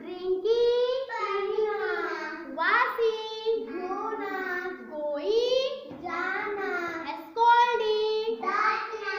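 Young children singing a chant of English action words, with long held notes that glide in pitch.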